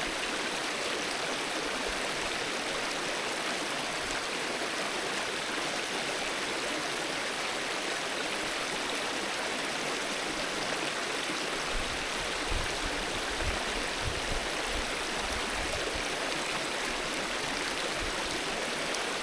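Alpine river flowing steadily, an even rushing of water, with a few soft low bumps about two-thirds of the way through.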